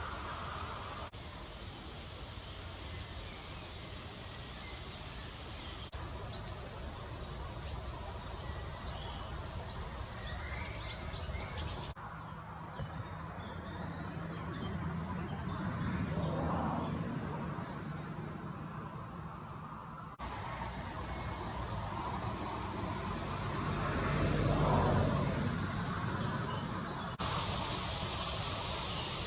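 Small birds chirping and singing over steady outdoor background noise, heard in several short cuts; the loudest run of quick high chirps comes about six seconds in. Twice a low rushing noise swells and fades.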